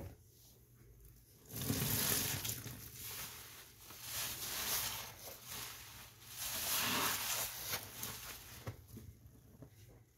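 Wet soapy sponge being squeezed, with squishing foam that swells three times.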